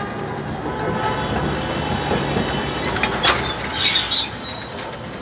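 Alexandria Raml tram running on its rails: a steady rumble and rattle, with a few clicks about three seconds in and brief high-pitched wheel squeals around three to four seconds in.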